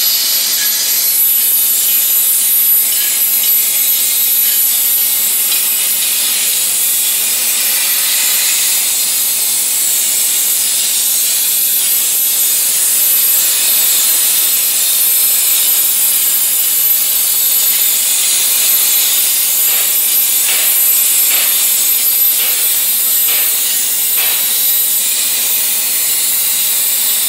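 CNC air plasma torch cutting steel plate: a steady, loud, high-pitched hiss of the plasma arc, with a thin high whistle running through it.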